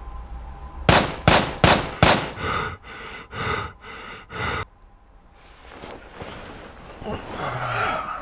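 A run of loud, sharp bangs, four in quick succession about a second in, followed by five duller, echoing thuds.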